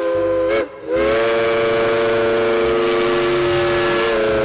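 Steam-locomotive whistle sound from a toy classic train, a steady chord of several pitches. One blast stops about half a second in; after a short gap a second, long blast starts and is held.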